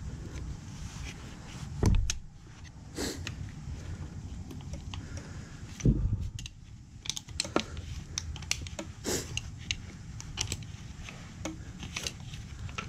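Light metallic clicks and scrapes of a pick and thin screwdriver prying at the snap ring in the ball-joint housing of a Stern adjustable upper control arm. Two dull thumps land about two seconds in and again about six seconds in.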